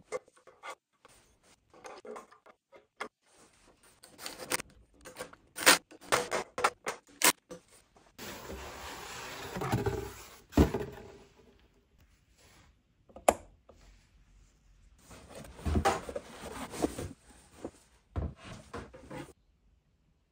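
Assembly handling sounds as Snapmaker Artisan parts are fitted: a series of irregular clicks, knocks and taps, with a stretch of rustling about halfway through, stopping suddenly near the end.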